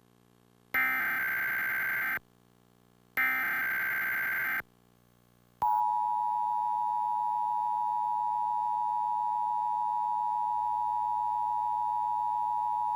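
Emergency Alert System test tones: two bursts of the SAME digital header, each about a second and a half long with a second of silence between them, then about halfway through the steady two-tone EAS attention signal (853 and 960 Hz) starts and holds.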